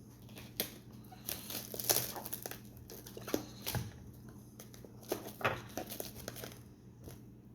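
Plastic packaging crinkling and rustling as it is handled, with irregular sharp clicks and a few light knocks, over a steady low hum.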